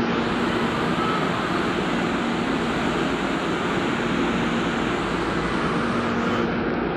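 MRT-3 light-rail train standing at the platform with its doors closed, its on-board equipment giving a steady hum over an even rushing noise.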